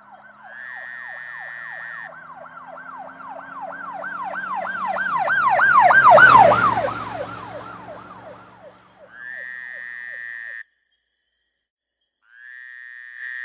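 Emergency vehicle siren in a fast yelp, each note sweeping down in pitch several times a second. It grows louder to a peak about six seconds in and then fades away as it passes, over a low vehicle rumble. Short steady horn-like blasts sound at the start and again twice near the end.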